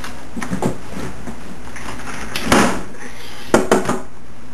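A few short knocks and a scraping rustle of things being handled, over steady background hiss. The loudest scrape comes about two and a half seconds in, and a quick cluster of knocks follows about a second later.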